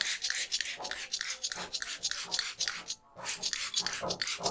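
Hands rubbing briskly over hair and skin in a head and neck massage: a quick run of rasping friction strokes, with a short break about three seconds in.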